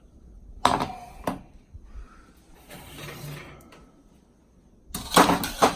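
Kitchen handling sounds: a couple of sharp knocks early, a soft rustle in the middle, then a louder run of clattering knocks near the end, as a hot baking pan and kitchenware are handled.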